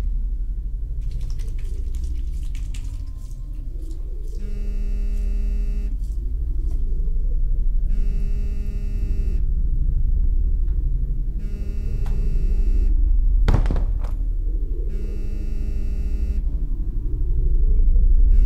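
A low rumbling drone under four buzzing ring pulses, each about a second and a half long and spaced about three and a half seconds apart: a phone ringing. About two-thirds of the way through there is one brief, sharp hit.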